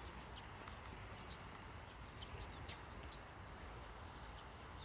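Faint outdoor ambience: a low, steady rumble with scattered short, high chirps.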